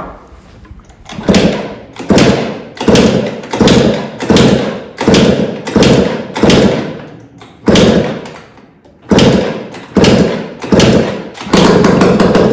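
Kick-starter of an MBK Booster 50 cc two-stroke scooter worked again and again, about a dozen strokes less than a second apart, each a sudden loud stroke that fades quickly. Near the end the strokes run together. This is a start test after the flywheel has been refitted with its key.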